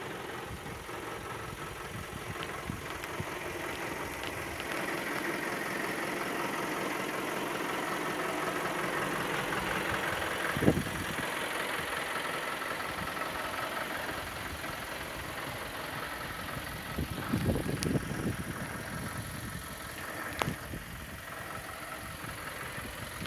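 Isuzu Forward N55 truck's 3.0-litre diesel engine idling steadily. A sharp knock comes about ten seconds in, with a few lighter thumps later on.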